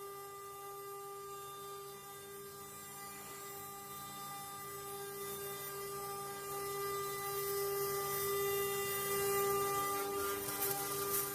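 CNC wood-carving router's spindle running with a steady whine made of several fixed tones, growing gradually louder.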